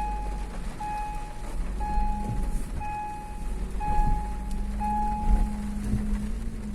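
A vehicle's electronic warning beeper sounds six steady, evenly spaced beeps about once a second, then stops. A low vehicle engine rumble runs underneath.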